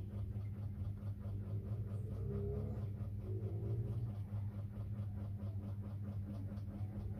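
A steady low hum with a faint, fast, even ticking over it.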